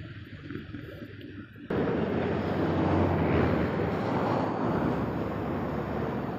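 Vehicle engine and road noise with wind on the microphone; it jumps abruptly to a louder, rougher rush with a low hum a little under two seconds in.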